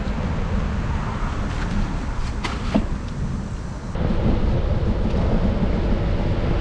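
Wind buffeting the camera microphone while riding a bicycle: a steady low rumble that gets louder about four seconds in, with a few light clicks near the middle.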